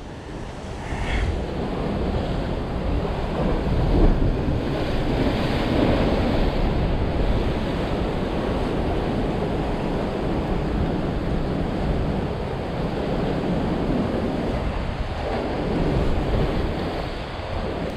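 Ocean surf breaking and washing against a rock ledge, a steady rush of water, with wind rumbling on the microphone.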